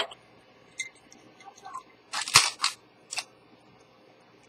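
Handling noises close to the microphone: a few sharp clicks, then a loud cluster of clicking and scraping knocks about two seconds in and one more click shortly after.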